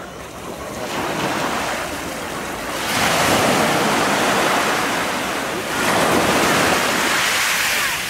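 Small sea waves washing in at the shoreline, swelling into two louder surges of surf, the first about three seconds in and the second about six seconds in.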